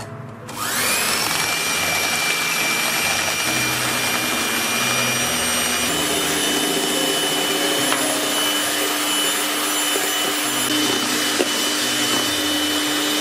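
Electric hand mixer whipping egg whites and sugar into meringue in a stainless steel bowl. The motor whine spins up about half a second in, then runs steadily, its pitch shifting slightly about halfway through.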